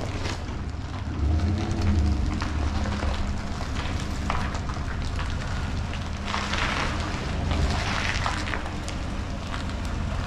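Pickup truck engine idling steadily with a low hum, a little louder about a second in. A stretch of rustling noise comes about six to eight seconds in.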